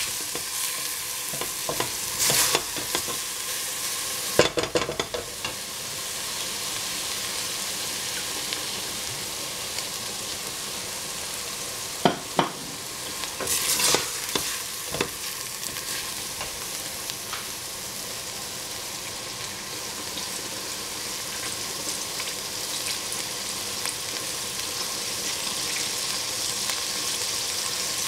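Minced meat sizzling as it fries in a stainless-steel pot, with a steady hiss. A wooden spatula stirs it, knocking and scraping against the pot a few times, mostly about two and four seconds in and again around twelve to fifteen seconds in.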